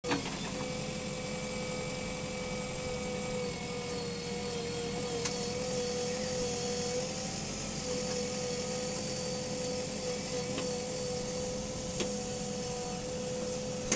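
JCB 3DX backhoe loader's diesel engine running steadily under load with a steady whine as the backhoe arm digs wet sandy soil, and a few faint knocks from the bucket.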